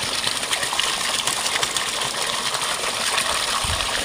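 Flowing stream water rushing steadily, with a dull low bump near the end.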